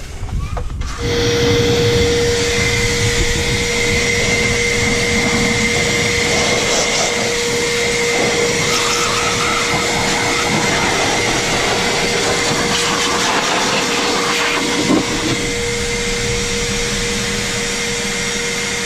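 Vacuum cleaner used as a blower, switching on about a second in and running steadily with a constant whine, blowing water off a freshly rinsed engine bay.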